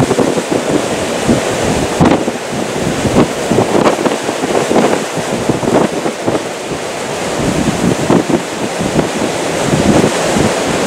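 Strong, gusty storm wind buffeting the microphone: a continuous rush broken by frequent sharp gusts.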